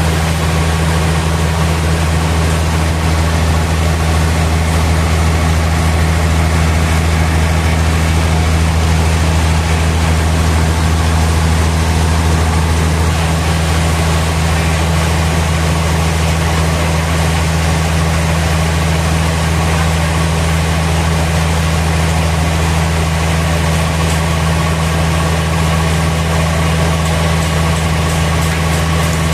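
Sawmill machinery running steadily at constant speed: a low, even machine drone with no cutting or impacts.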